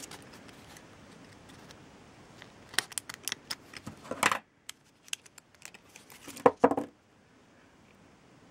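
Scissors cutting a strip from a plastic-backed sheet of stick-on rhinestones: a cluster of short crisp snips and crackles about three to four seconds in, then a few more sharp clicks a couple of seconds later.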